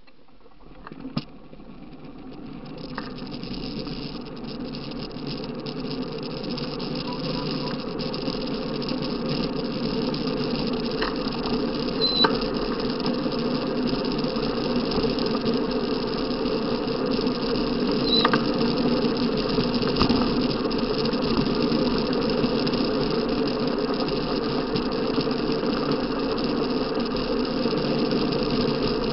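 Soapbox cart rolling down a tarmac road, its wheels and body rumbling and rattling. The noise grows louder over the first ten seconds or so as the cart gathers speed, then holds steady, with a few sharp knocks from bumps in the road.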